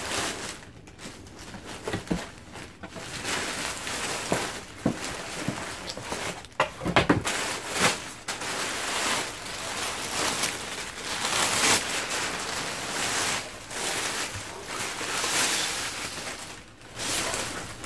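Rustling and crinkling of a white printed wrapping and stiff tulle layers as a gown is unwrapped and lifted out of a cardboard box, with sharper crackles loudest about seven seconds in.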